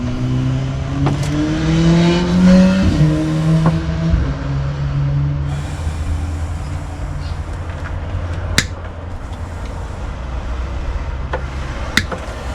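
A motor speeding up, rising in pitch for about three seconds, then running steadily and fading. Two sharp clicks come later, the second near the end.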